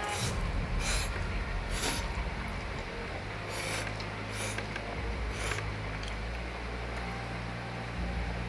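A person slurping and eating instant noodles close to a clip-on microphone, with a series of short slurps through the first two-thirds or so.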